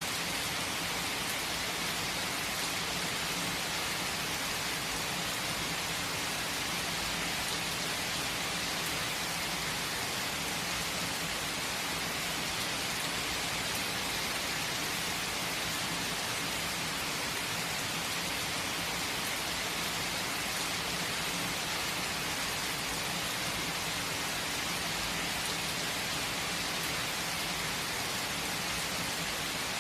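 Steady rain falling: an even, unbroken hiss with no pauses or swells.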